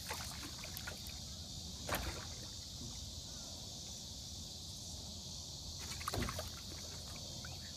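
Small fishing boat on calm water with a steady faint hiss and low rumble. Two short knocks, about two seconds and six seconds in, come as a striped bass is handled over the side of the boat.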